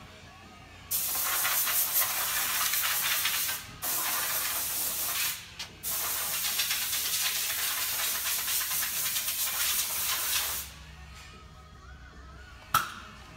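Compressed-air blow gun hissing in three long blasts, with short breaks between them, blowing metal filings off a transmission separator plate. A single sharp click near the end.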